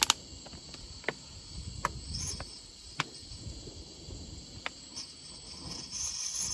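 Scattered sharp clicks and taps of cooking gear being handled, a strong double click at the start, over a steady high-pitched background hiss. Near the end, vegetable oil is poured from a plastic bottle into a frying pan, a brief soft splashing pour.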